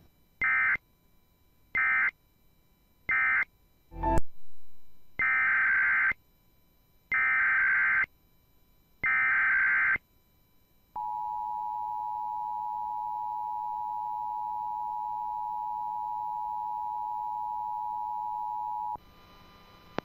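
Emergency Alert System signals. First come three short end-of-message data bursts, then a loud thump about four seconds in. Next, three SAME header bursts of rapid warbling digital tones, about a second each, open a Virginia required monthly test. They are followed by the two-tone EAS attention signal (853 and 960 Hz), a steady harsh chord held for about eight seconds.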